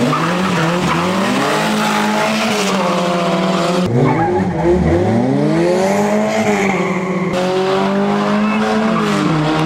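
Four-cylinder Chevrolet Corsa drag cars accelerating hard down the strip, their engines revving high. The pitch climbs through each gear and drops at the shifts.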